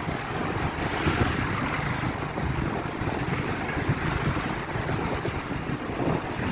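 Wind rushing and buffeting over a phone microphone on a moving motorbike, over a steady low road and engine rumble.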